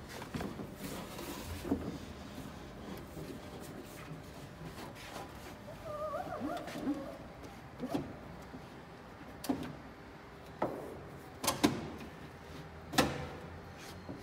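A heavy ballistic glass pane being worked into a Ford Explorer's door: rubbing and handling noise, then a series of sharp knocks and taps of the glass against the door frame, the loudest near the end.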